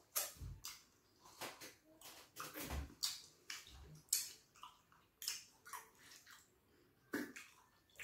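Eating sounds from fufu and slimy ogbono (draw) soup eaten by hand: irregular wet smacks, sucks and clicks of lips, tongue and fingers.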